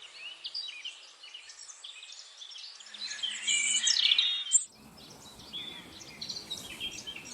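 Many small birds chirping and calling over one another, growing to a denser, louder burst of song about three seconds in, then cutting suddenly to a different, fainter bird chorus with more background noise.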